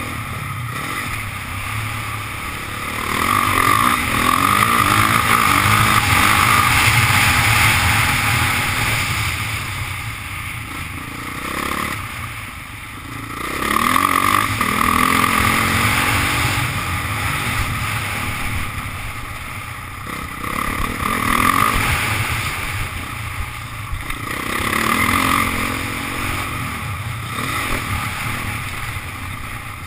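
Motocross bike engine revving hard and easing off again and again as it is ridden over a dirt track, the throttle shut briefly about twelve seconds in.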